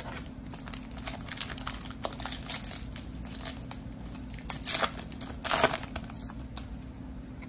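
Foil wrapper of a trading-card pack crinkling and tearing as it is ripped open and the cards are slid out, with two louder crackles a little past the middle.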